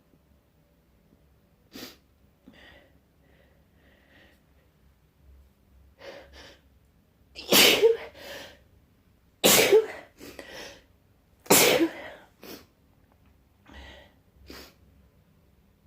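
A person sneezing hard three times in a row, about two seconds apart, from the nose tickle of a head cold. Quieter short breaths and small sounds come before and after the sneezes.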